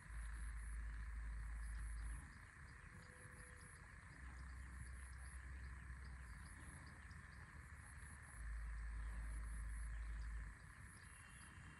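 Faint, steady chirping of insects, with a high pulsing trill that comes and goes in short groups. Gusts of wind rumble on the microphone, strongest at the start and again from about eight to ten and a half seconds in.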